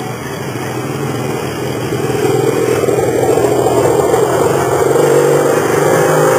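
Chopper motorcycle engine running as the bike rides toward the listener, getting louder with a step up about two seconds in as it approaches.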